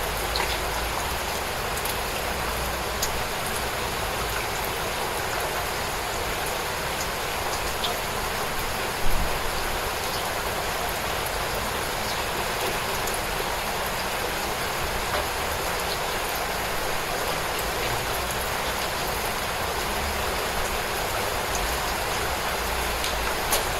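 Steady, gentle rain falling: an even hiss with scattered small drop ticks, and one sharper tap about nine seconds in.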